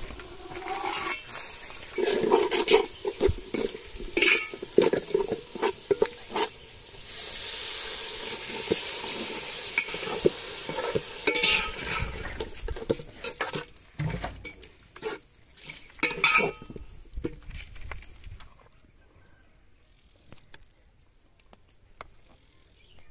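A metal ladle stirring snails in curry gravy in a large metal pot over a wood fire, with scraping and clinking against the pot and a steady sizzling hiss for about five seconds in the middle. The sound drops away to a few faint clicks for the last few seconds.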